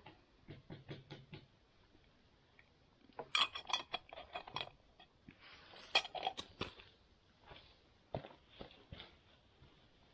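Metal spoon clinking and scraping in a small metal camping pot, with the pot's metal lid lifted off and set back on. The clinks come in four short clusters, the loudest about three and six seconds in.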